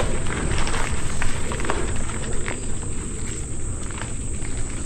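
Mountain bike riding over a dirt singletrack trail: a steady rumble of tyres and rolling, with scattered small clicks and rattles, under a steady high insect drone.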